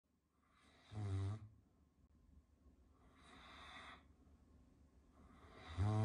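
Caucasian shepherd dog snoring in its sleep: a loud, low snore about a second in, a softer breathy breath around three to four seconds, and another loud snore starting near the end.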